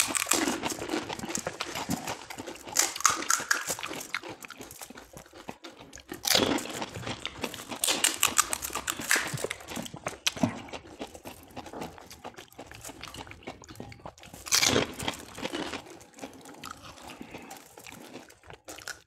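Close-up mouth sounds of panipuri being eaten: crisp, hollow puris crunching as they are bitten and chewed, with wet slurping of the spiced pani water. The sounds come in irregular bursts, the loudest a few seconds apart.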